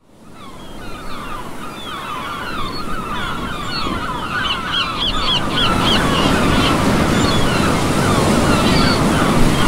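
A flock of gulls calling, many short overlapping cries, over surf breaking on the shore. The sound fades in at the start; the calls thin out in the second half as the surf grows louder.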